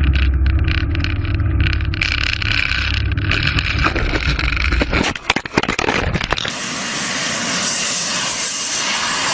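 Aircraft noise: a heavy, steady low rumble, then a cluster of sharp cracks about five seconds in, giving way to a loud steady hiss.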